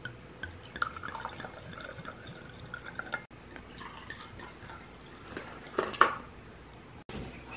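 Light clinks, taps and dripping liquid from kitchen cooking work, with a sharper click about six seconds in.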